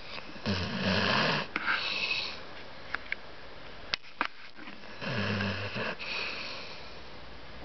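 A sleeping pet snoring: two long, low snores about a second each, one just after the start and the next about five seconds in, with a few faint clicks between them.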